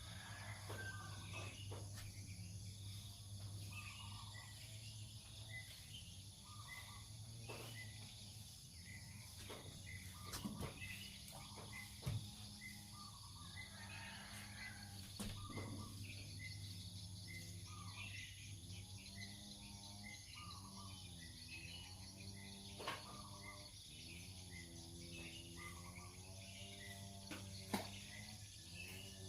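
Outdoor ambience: a steady high insect chorus with a regular chirping call repeating about twice a second, over a low steady hum. There are a few sharp clicks, and wavering low calls in the second half.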